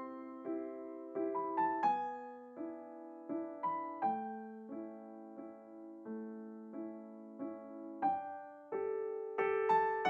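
Background piano music: gentle chords and single notes struck at an unhurried pace, each one decaying before the next.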